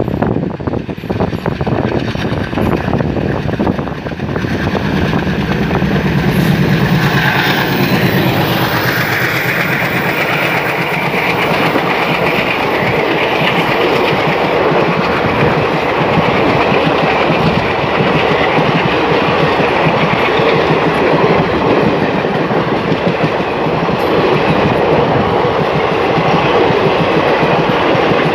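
WDM-3 diesel-electric locomotive with an ALCo V16 engine passing at speed: its low engine note swells about five seconds in. Then its coaches run by with a steady rush and continuous clickety-clack of wheels over rail joints. Wind buffets the microphone in the first few seconds.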